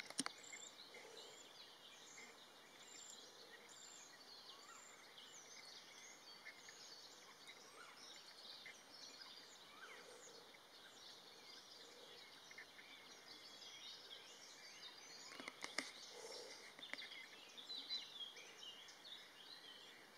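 Faint chorus of small birds chirping and singing, many short high notes overlapping, with a few soft knocks about three-quarters of the way through.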